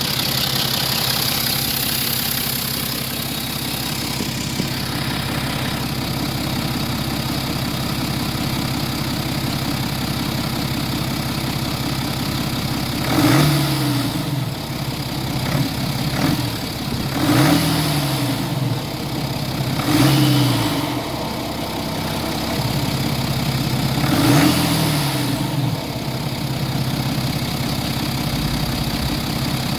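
BMW N57 3.0-litre straight-six diesel idling, with four short blips of revs that rise and fall back, about 13, 17, 20 and 24 seconds in. The owner is recording it for a knock that comes only with the oil hot, below about 2000 rpm, and that no fault code or garage has explained.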